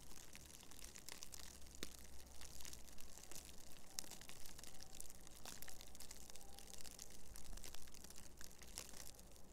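Falling snow ticking on dry leaves and the forest floor: a dense, irregular patter of small ticks over a faint low rumble.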